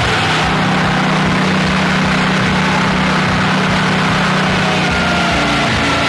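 Portable band sawmill running as its blade cuts along a log: a loud, steady machine drone with a low hum that eases off about five seconds in as the cut finishes.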